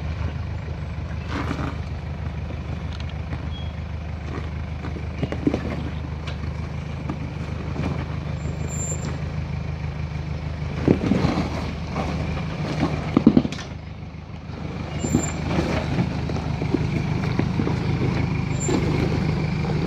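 Off-road 4x4's engine running steadily at low revs while the vehicle crawls over rough ground. A few sharp knocks come a little past the middle, and the engine note briefly drops away just after them.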